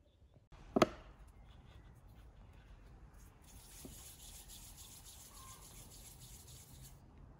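A single sharp knock about a second in, the loudest sound. Then, from about halfway, a dry rubbing sound for a few seconds: hands rolling a piece of floured dough between the palms.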